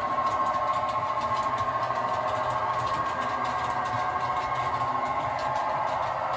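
Model diesel locomotive running along the layout track: a steady mechanical whirr with a fast ripple.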